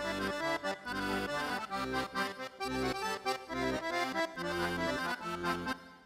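Yamaha Montage synthesizer keyboard played live: a melody over chords, with low bass notes sounding in short, repeated blocks.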